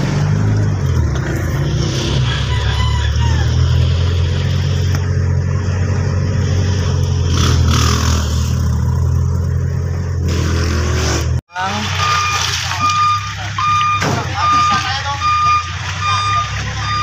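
Truck engine running with a steady low hum, heard from inside the cab. After a sudden cut about eleven seconds in, a vehicle's reversing alarm beeps over and over, a little under twice a second.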